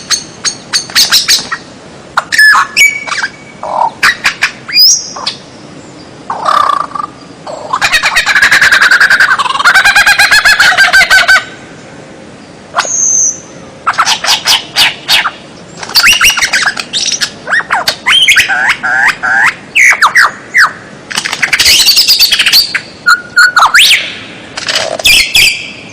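A masteran recording of songbird song: loud, fast, varied phrases of whistles, rapid trills and harsh squawky notes follow one another almost without pause, with a short break about halfway through.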